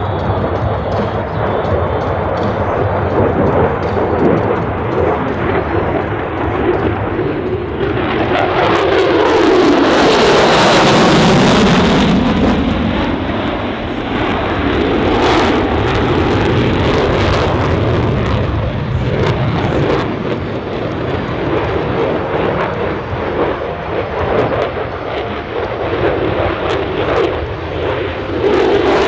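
F-22 Raptor's twin F119 jet engines running hard with a crackling roar during a tight turn. It swells loudest between about 8 and 13 seconds in as the jet passes closest, with a falling then rising sweep in pitch.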